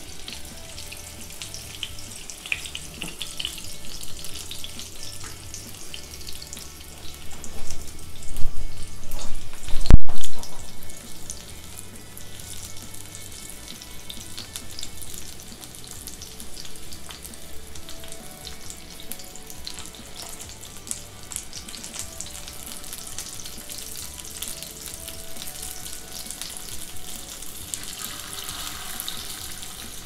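Chicken seekh kebabs shallow-frying in oil in a pan, a steady crackling sizzle while they are turned over. A loud thump about ten seconds in.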